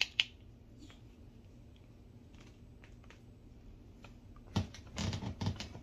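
Light clicks and taps from a handheld karaoke microphone being handled: two sharp clicks at the start, a few faint ticks, then a denser run of clicks and bumps near the end.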